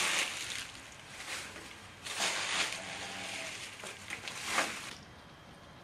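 Dry fallen leaves crackling and rustling as they are scooped up by hand, in three separate handfuls.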